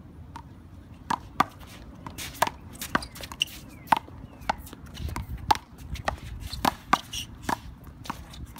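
Doubles rally of one-wall handball: a rubber handball slapped by hand and smacking off the wall and the court surface, a string of sharp, irregularly spaced smacks starting about a second in.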